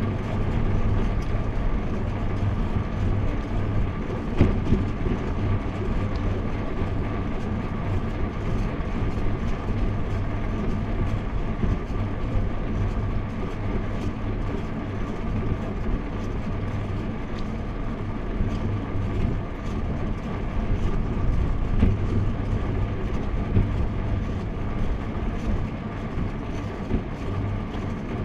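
Steady road and wind noise from a camera mounted on a bicycle riding along a paved road: a constant rumble with hiss, and a few faint ticks.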